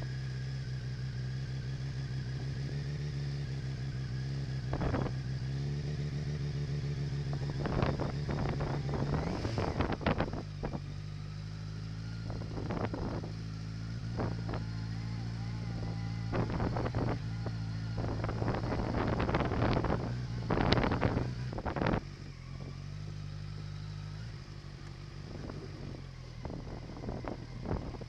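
Kawasaki Versys 1000's inline-four engine running at low revs on sand, its note stepping up and down. Over it come repeated irregular bursts of an unusual grinding noise, while the traction control light is flashing.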